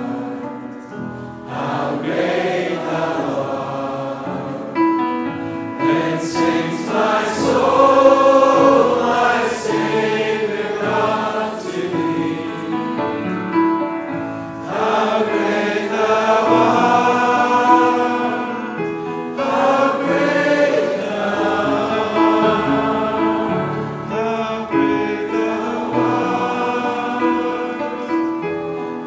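A group of voices singing a hymn together in long, sustained phrases.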